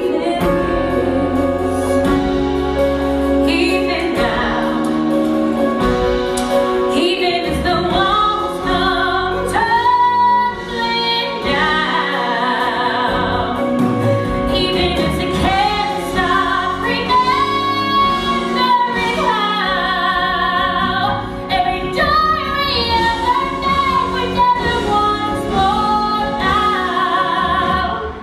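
A woman singing a solo musical-theatre ballad over orchestral accompaniment, holding long notes with vibrato.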